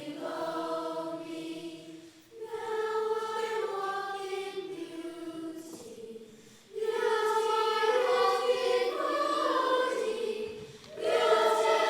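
Youth choir singing long held notes in phrases, with short breaks between phrases about two, six and a half, and eleven seconds in.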